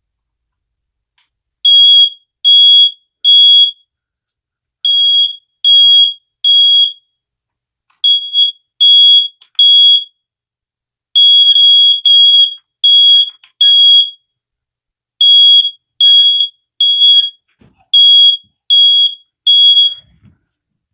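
Smoke alarm sounding on test: loud, high-pitched beeps in groups of three with short pauses between groups, the temporal-three alarm pattern. It repeats about six times and then stops near the end when it is silenced.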